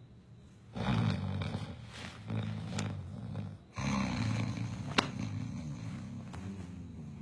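A man snoring: two long, rough, low-pitched snores, the first starting about a second in and the second just before four seconds in. A sharp click comes partway through the second snore.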